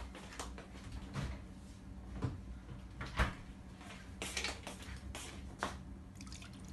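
Scattered light knocks and clicks of kitchen things being handled on a countertop while a plastic bottle of cold water is brought over to pour into the blender jug.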